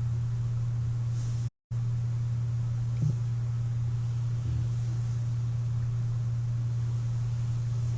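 A CPAP machine running with a steady low hum and a faint hiss of air. The sound cuts out for a moment about a second and a half in, and there is a small click about three seconds in.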